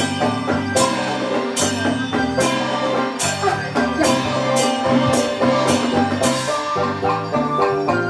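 Taiwanese opera (gezaixi) accompaniment playing an instrumental passage: held melodic notes over a steady beat of sharp percussion strikes, about one and a half a second. The strikes fade near the end.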